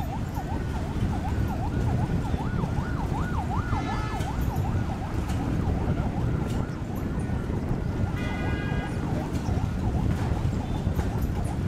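A vehicle siren yelping in quick up-and-down sweeps, about three a second, over a low rumble. A horn sounds briefly about four seconds in and again for about half a second near eight seconds.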